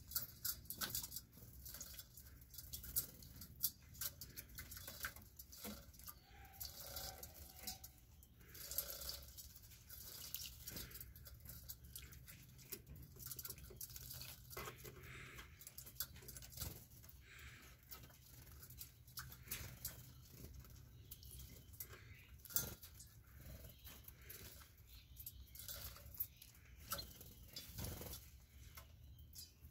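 Small cage birds bathing in a shallow metal water bowl: a faint, irregular patter of splashes and water flicks as they dip and shake their wings.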